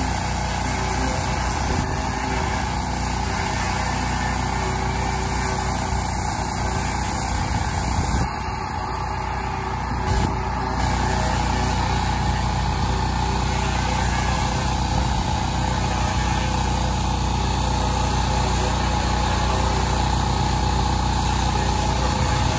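Pressure washer running steadily while a turbo tip on an extension wand sprays water at aluminum siding to strip chipped paint. The level dips briefly about eight seconds in, then carries on steadily.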